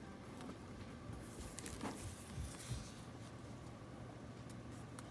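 Faint handling noise from a plastic train-shaped water bottle being turned over in the hands: light rustles and a few soft taps, mostly between one and three seconds in, over a low steady room hum.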